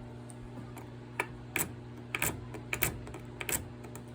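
Metal lock pick and tension wrench working a pin-tumbler padlock: irregular light clicks, starting about a second in.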